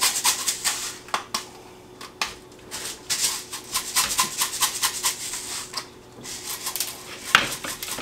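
Coarse sea salt shaken from a shaker in quick runs of rattling ticks, the grains landing on a raw roast and a metal sheet pan, with metal clinks of a rotisserie spit and forks against the pan and one sharper click near the end.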